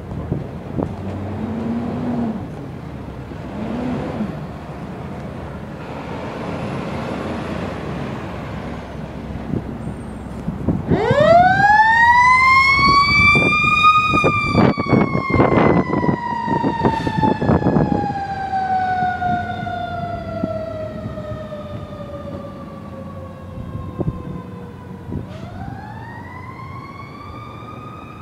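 Fire tanker's siren winding up about a third of the way in, then slowly falling in pitch for about ten seconds, and winding up again near the end. Short loud blasts sound over it at its peak. Before the siren, the truck's engine rumbles as it pulls out.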